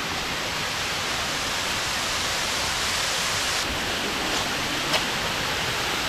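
Steady rushing of a waterfall, with one short click about five seconds in.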